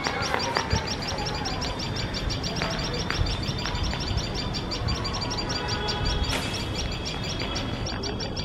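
Tailorbirds giving shrill alarm calls in a fast, steady series of high notes, a sign that a cat is sitting close to their nest.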